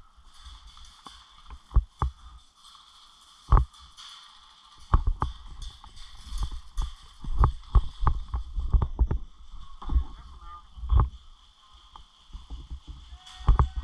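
Irregular dull knocks and sharp clicks, about fifteen scattered through, some in quick pairs, over a faint steady hiss.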